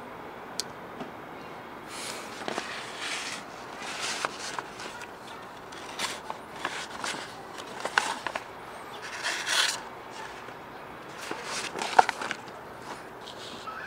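A steel pocketknife blade drawn through a sheet of paper in a series of irregular strokes, the paper rustling and crackling with small clicks, and a sharp click near the end.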